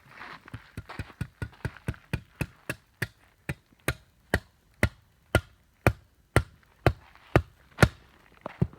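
A run of hammer blows knocking corten steel garden edging into the ground. There are about three sharp strikes a second at first, slowing to about two a second, with a few lighter taps near the end.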